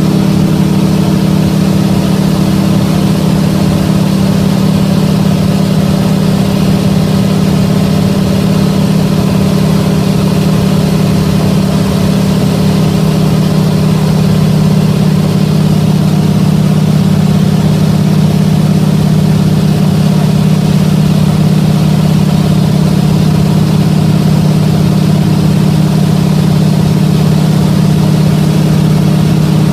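Single-engine floatplane's piston engine and propeller, heard from inside the cabin, running steadily at flying power as a loud, even drone.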